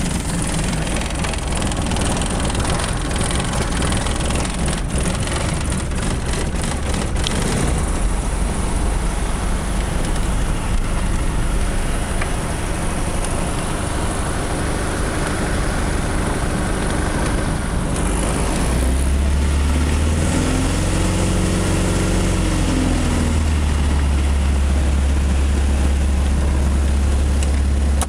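Fournier RF-5 motor glider's engine running at low power, heard from inside the cockpit with wind and wheel noise as the aircraft rolls along the runway after landing. About two-thirds of the way through, a deep drone comes in and the sound grows a little louder, then holds steady.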